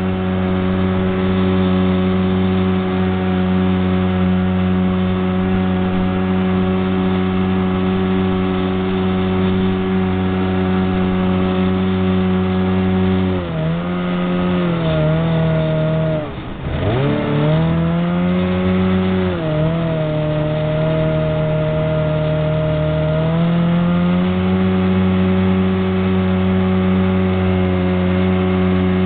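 Homemade jet boat's engine running steadily at high speed. About halfway through it is throttled down, its pitch falling sharply, then it climbs back, with a smaller dip a few seconds later.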